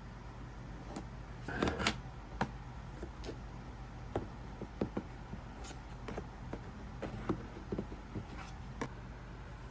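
Scattered small clicks and taps, with a brief louder rustle about a second and a half in, over a steady low hum.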